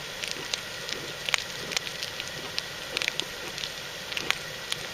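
Stovetop coffee percolator perking gently on a gas stove: irregular small pops, a few a second, over the burner's steady hiss. It is the barely-perking simmer wanted for brewing.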